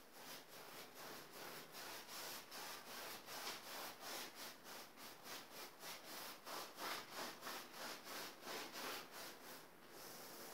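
Wide flat paintbrush scrubbing back and forth on a canvas in quick, regular strokes, about three a second, as the painter blends the sky colours.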